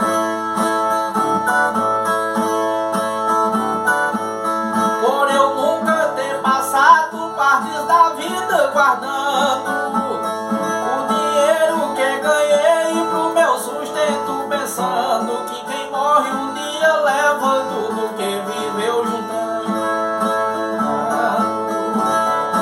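Brazilian viola (the steel-strung folk guitar of repente) playing an instrumental interlude between sung stanzas. Steady ringing drone strings sound throughout, and a plucked melody runs over them from about five seconds in.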